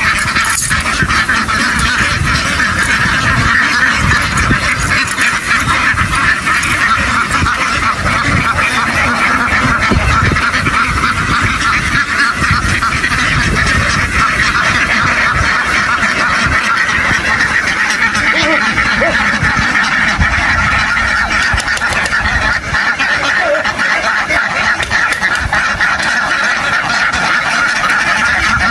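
A large flock of domestic ducks quacking all together in a dense, continuous din, with no pauses.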